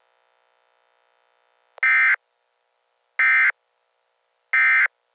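Emergency Alert System end-of-message signal: three short bursts of SAME digital data tones, a little over a second apart, marking the end of the alert broadcast.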